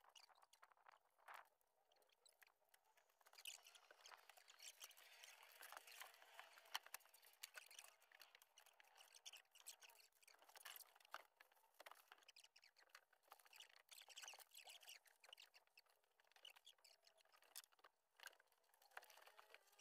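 Faint, fast-forwarded work sounds from people handling wiring: a rapid, dense clatter of tiny clicks and high squeaky chatter, with no low sound at all.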